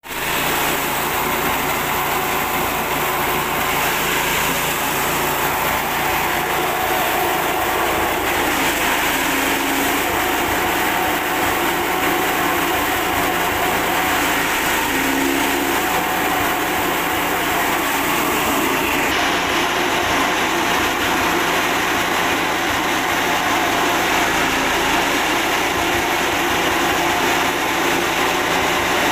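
Forage chaff cutter with a six-blade rotor, driven by a 6.5 hp petrol engine, running at speed while corn stalks are fed in and chopped. The engine and the cutting make a loud, steady mechanical din.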